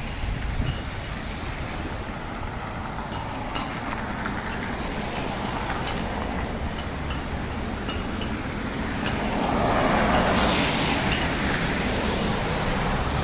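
City street traffic noise, with a vehicle passing close by that swells to its loudest about ten seconds in and then eases off.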